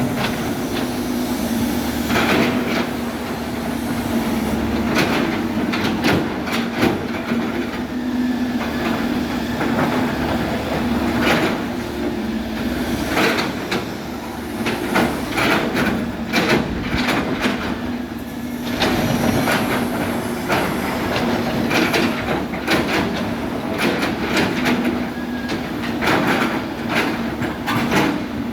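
Excavator working: the diesel engine hums steadily under irregular metallic clanks and knocks from the bucket and debris.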